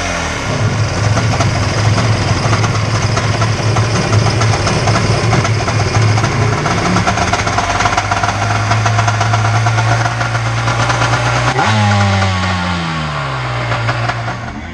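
Yamaha 701 two-stroke twin jet-ski engine running out of the water, idling steadily on its first warm-up run after the cylinder head was shaved and refitted. About 12 s in the pitch jumps up with a blip of throttle and then falls steadily away.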